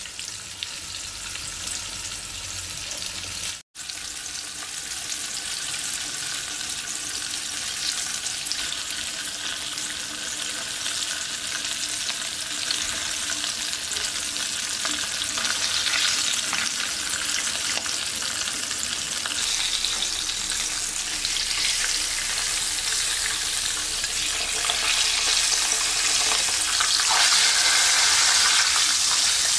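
Hot oil sizzling and crackling steadily around pieces of sea bream frying in a pan. It cuts out for an instant a few seconds in and grows louder toward the end.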